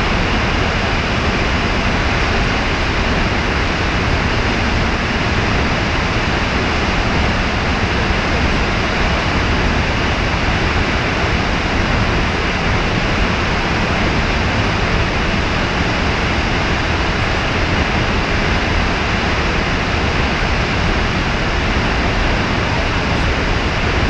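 Snoqualmie Falls roaring: a loud, steady, unbroken rush of falling water.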